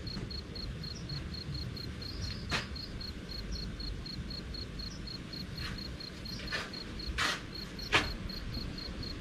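A cricket chirping steadily, about three chirps a second, over a low rumble of wind. A few sharp knocks of kitchen things break in, the loudest one about eight seconds in.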